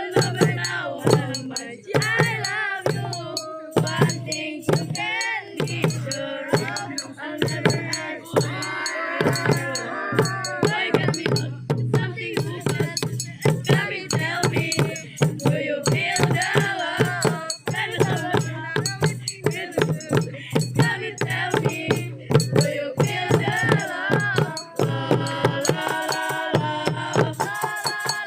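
Group percussion performance: drums and shakers playing a fast, dense beat, with voices singing or chanting over it.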